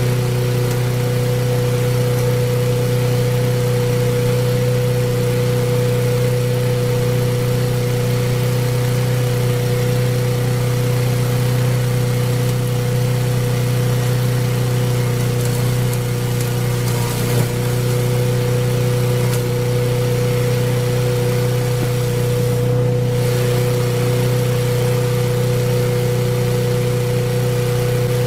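Homemade wood chipper's motor running steadily with a constant, unchanging hum, and a brief knock about 17 seconds in.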